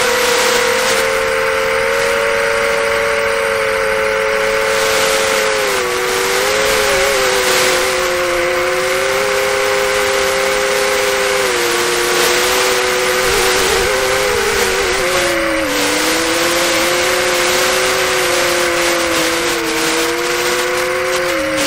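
Four-inch FPV quadcopter's 1603 2800KV brushless motors whining in flight: two close tones that waver and dip in pitch, over a hiss of prop wash.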